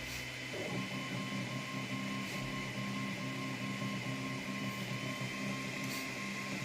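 Anet A8 3D printer's stepper motors running with a steady, multi-tone whine; the pitches change about half a second in as the motion changes. A few faint ticks sound over it.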